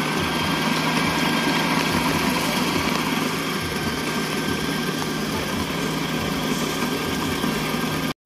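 Electric stand mixer running with its attachment turning in an empty stainless steel bowl: a steady motor whine over a low mechanical hum. It stops suddenly near the end.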